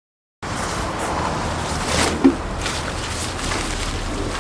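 Silence for about half a second, then rustling and soft knocks of camping gear and plastic bags being handled, over a steady low outdoor rumble.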